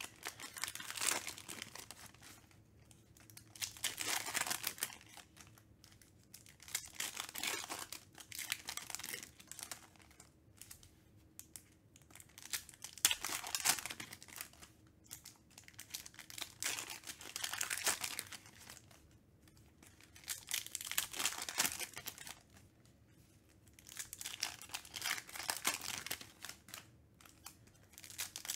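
Foil wrappers of Panini Donruss Optic basketball card packs being torn open and crinkled by hand, one pack after another, in crackly bursts every three to four seconds.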